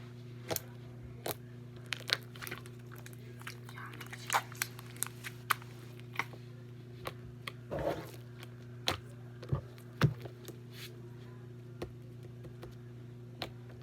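Irregular small clicks and crackles from hands handling things, over a steady low hum.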